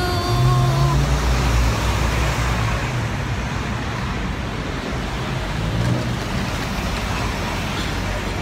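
Road traffic on a busy city street: vehicles passing with a low engine rumble that swells in the first two seconds and again around six seconds. A steady pitched tone cuts off about a second in.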